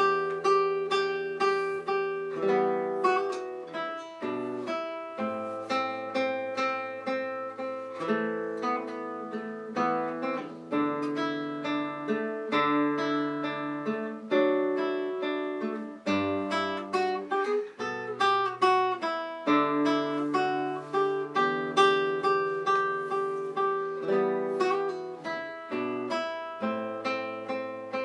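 Solo classical guitar played fingerstyle: a steady stream of plucked, arpeggiated notes, about four a second, over held bass notes.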